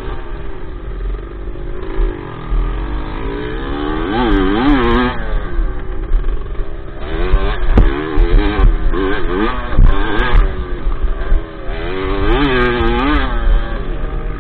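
Dirt bike engine heard from on board, revving up and down repeatedly as the rider accelerates and eases off, with low wind rumble on the microphone and a few sharp knocks.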